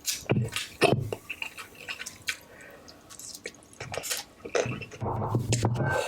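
A person eating noodles: chewing, with short wet mouth clicks and smacks, and a louder, denser stretch of eating sounds near the end.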